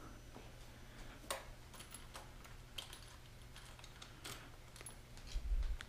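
Faint, scattered light clicks and taps, about five of them spread out, from hands handling a motorcycle's left handlebar controls and clutch lever, over a low steady hum. A dull low thump comes near the end.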